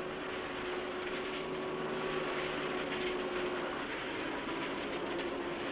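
Machinery of an onshore concrete mixing plant and concrete pump running: a steady mechanical drone with a steady hum.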